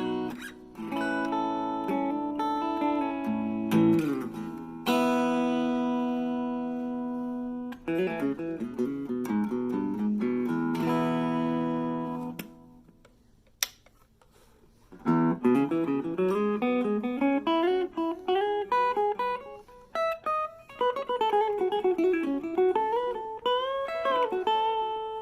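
Harley Benton CST24-HB electric guitar played through a Blackstar Fly 3 mini amp. Strummed chords are left to ring and fade for about twelve seconds, then a short pause with a single click, then quick single-note lead lines with string bends and slides.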